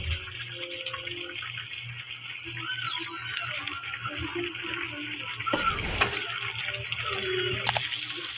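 Papaya in coconut milk simmering in a pan, a steady bubbling sizzle, as a wooden spatula stirs it, with one louder thump about six seconds in.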